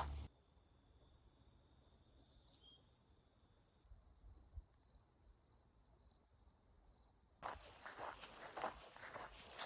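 Faint insects and birds chirping: a few short high bird-like notes, a steady high insect note, then a pulsing cricket-like chirp about two or three times a second. About seven and a half seconds in, louder crunching footsteps start.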